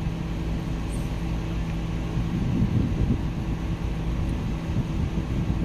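A steady low machine hum with a constant pitched drone underneath and some uneven low rumble.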